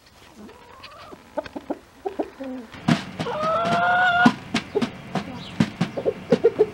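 Chickens pecking grain off a tom drum's head: a scattered run of sharp taps on the drumhead that come faster near the end. A little past the middle a chicken gives one call about a second long, rising slightly.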